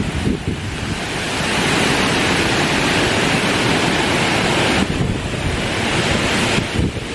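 Strong gusty wind buffeting the microphone with a low rumble, while a gust builds into a loud rushing hiss about a second in and eases off near five seconds, then swells briefly again.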